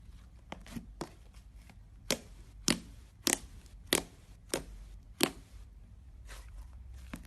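Slime being worked by hand, giving a series of sharp clicking pops; six loud ones come evenly, a little over one a second, in the middle, with fainter ones before and after.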